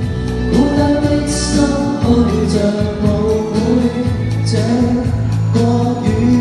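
A woman singing a pop ballad live into a handheld microphone, over instrumental accompaniment played through the hall's speakers.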